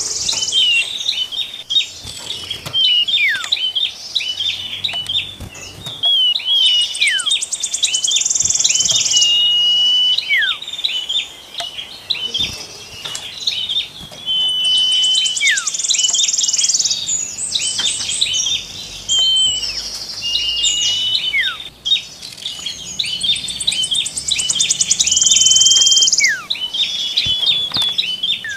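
Small songbirds calling and singing continuously: dry, high buzzing rattles alternate with thin whistled chirps and quick downward-sweeping whistles, the pattern coming round again every eight seconds or so.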